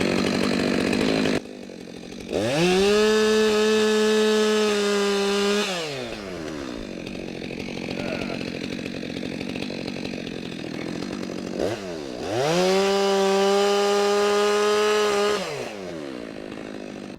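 Gas chainsaw bucking a log into firewood. It runs at full throttle at the start, drops to idle, then revs up twice for about three seconds each, falling back to idle between the two cuts.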